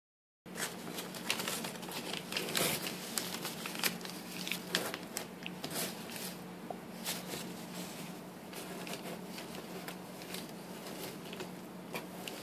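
Paper crinkling and tearing in quick small rustles as a cat chews on it, busiest in the first half, over a faint steady low hum.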